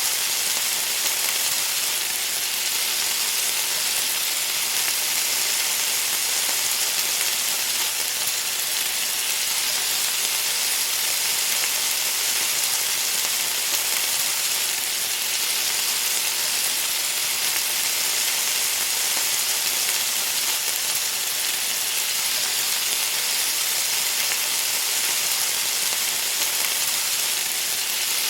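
Food sizzling and frying in hot oil, a steady high crackling hiss.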